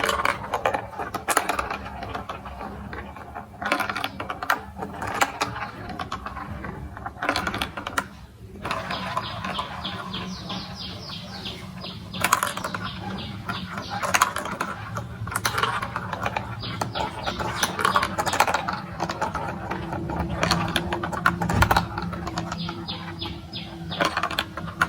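Marbles rattling and clicking through a plastic building-block marble run: a dense clatter of small clicks, with a quick, evenly spaced run of ticks about nine seconds in, over a low steady hum.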